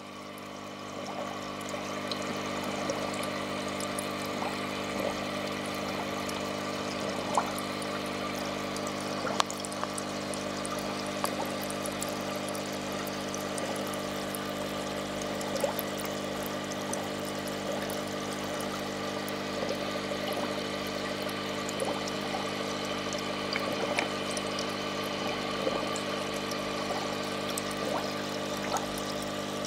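Aquarium water trickling and bubbling over a steady hum of running tank equipment, with a few sharp little pops scattered through.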